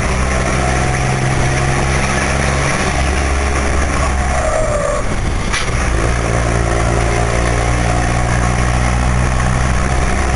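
Volkswagen 23-250E truck's diesel engine running steadily on the road. About four seconds in, its low hum briefly drops out, with a short click a little after, then the engine note picks up again.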